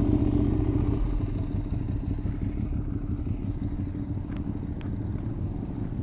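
Motorcycle engine running steadily with a low, even rumble and no revving. Two faint clicks come about four and a half seconds in.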